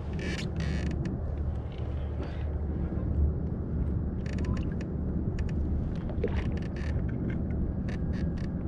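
Fishing reel clicking in short runs while a hooked sturgeon is fought, over a steady low rumble.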